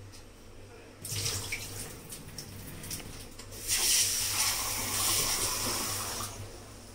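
Water splashing in a sink from about a second in, then a kitchen tap running into a metal pot of rice being rinsed, louder for about two and a half seconds before it stops near the end.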